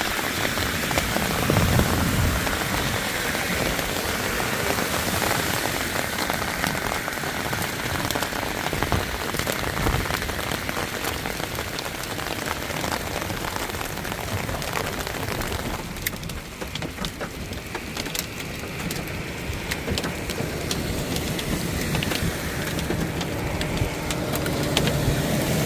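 Heavy rain pouring and splashing on hard surfaces: a dense steady hiss full of individual drop hits. It eases somewhat about two-thirds of the way through, and a low steady hum comes in near the end.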